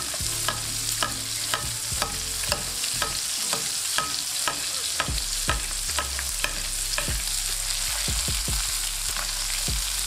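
Butter sizzling in a nonstick frying pan as lamb chops are basted, with the basting spoon clicking against the pan about twice a second, less regularly in the second half.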